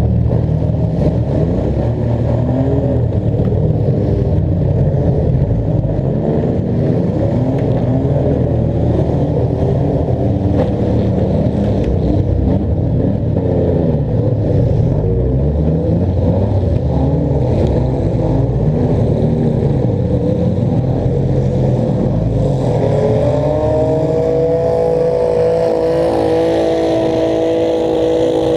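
Demolition derby cars' engines revving up and dropping back over and over, several engines running at once. About three-quarters of the way through, a steady held note of several tones comes in and stays.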